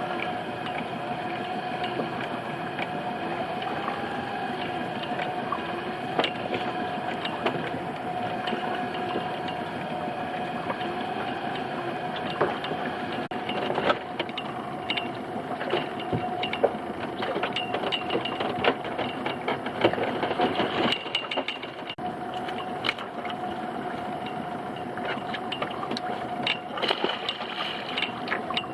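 A motor on a small fishing boat running steadily with a pitched drone. Scattered knocks and clatter join it from about halfway through.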